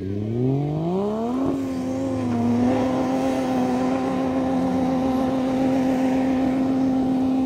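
A 4WD's engine revs up over about a second and a half, then is held at steady high revs as it strains through soft beach sand during a recovery.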